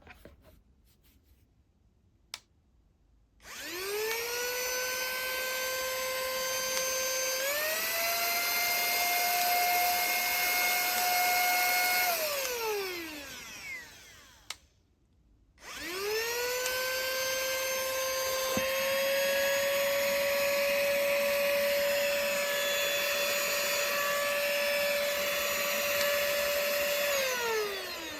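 Cordless handheld vacuum cleaner switched on twice, its motor whining up to speed each time and winding down when switched off. During the first run the pitch steps up about eight seconds in.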